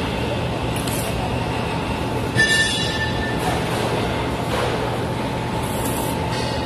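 Short bursts of dual-shield flux-core arc welding on steel, each a brief crackling hiss, as the parts are tack-welded in a jig over steady shop noise. About two and a half seconds in, a sharp metallic clank rings out.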